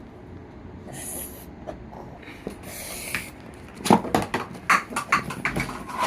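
Cups being handled and set against each other: a run of sharp taps and knocks in the second half, after two brief hissing sounds.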